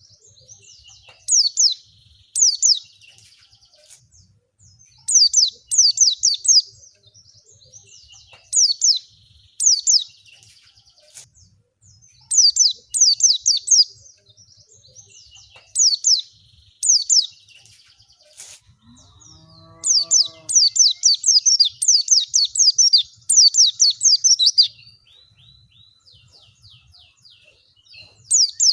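White-eye (pleci) song: repeated short bursts of rapid, high, descending twittering notes, a second or two apart, fainter for a few seconds near the end. About two-thirds of the way through, a brief lower-pitched call that rises and then holds steady cuts in.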